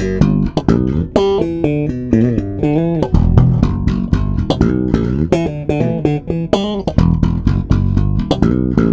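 Jones SM1 electric bass with a Glockenklang preamp, played in a fast run of plucked notes with sharp attacks.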